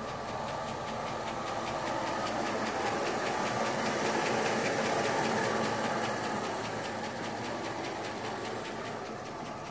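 Whipple-supercharged 5.3-litre LS V8 idling steadily at about 500 rpm, fully warmed up, with rapid ticking from its noisy valve train, the loudest thing heard. The sound grows a little louder toward the middle and eases again near the end.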